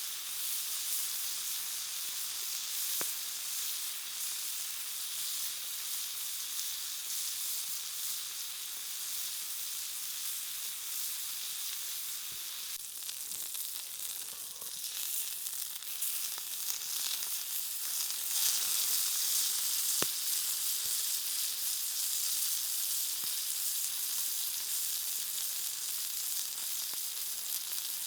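Meat sizzling steadily on a hot stone grill over a campfire, with an occasional sharp pop.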